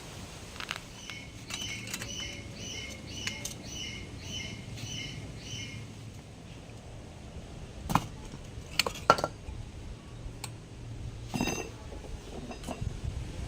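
A bird chirping about nine times in an even series, roughly two chirps a second, followed by a few sharp knocks, the loudest about nine seconds in.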